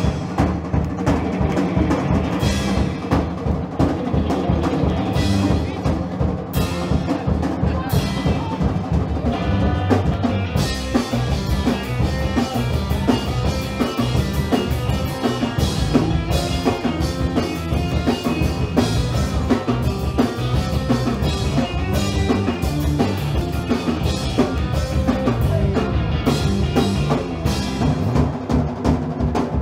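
Live band playing loudly, the drum kit driving a steady beat with bass drum and snare prominent.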